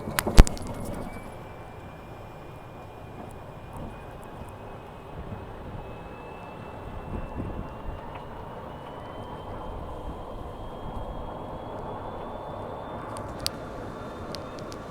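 Steady road noise of a vehicle ride, with a faint whine that slowly rises in pitch. A single sharp knock comes about half a second in.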